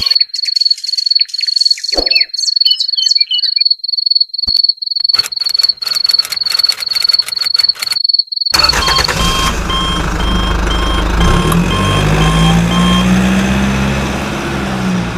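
A cricket chirping in rapid, even, high-pitched pulses for about the first nine seconds. Then a steady mechanical running noise takes over, with a low hum that rises and then falls near the end.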